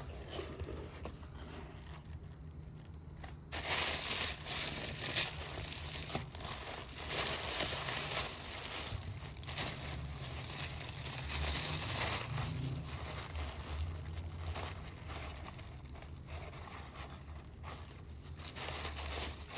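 Tissue-paper packing crinkling and rustling as hands dig stacks of cards out of a cardboard box, with small scrapes of card and cardboard. It is quieter for the first few seconds, then busier.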